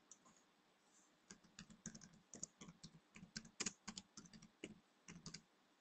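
Faint typing on a computer keyboard: a quick, uneven run of keystrokes starting about a second in, as a two-word name is typed.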